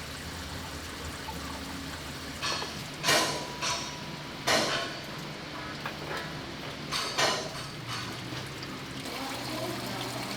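Warm, oily coolant water running and splashing as it drains out of a BMP-1's cooling system after a solvent flush, with several sudden louder noises between about two and eight seconds in.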